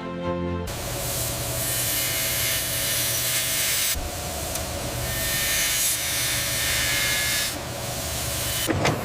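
Steady mechanical hiss and whir of factory machinery, with a low hum underneath, changing abruptly about four seconds in and again near the end, where sharp clicks begin. A short tail of music is heard at the very start.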